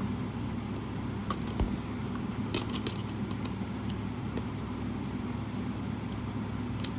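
Steady low background hum with a few scattered small clicks and taps of screws being worked out of a small plastic speaker housing.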